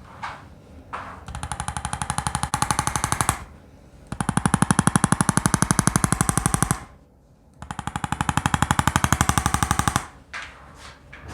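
Handheld electric chiropractic adjusting instrument tapping rapidly, in three runs of two to three seconds each with short pauses between.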